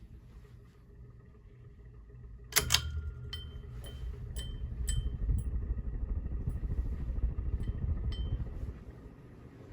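Casablanca Genesis ceiling fan running, with a low rumble throughout. A sharp click comes about two and a half seconds in; after it the rumble grows heavier, with a string of light ticks, until it eases off near the end.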